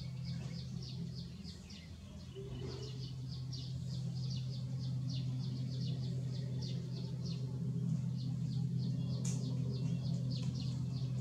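A steady low hum under a regular run of short high chirps, about three a second, growing a little louder after the first few seconds.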